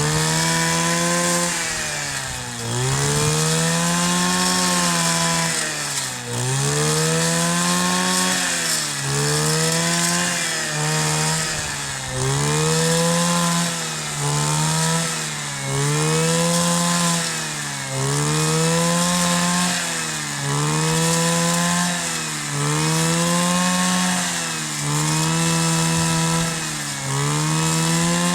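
Kioritz 260 brush cutter's small two-stroke engine revving up and dropping back over and over, about every two seconds, its pitch rising, holding briefly, then falling.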